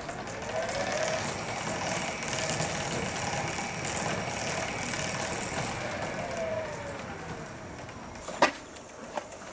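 The drive motor and gearing of a homemade spinning fairground ride running as the arm spins up, a steady mechanical whir with a whine that rises and falls in pitch. Two sharp clacks come near the end.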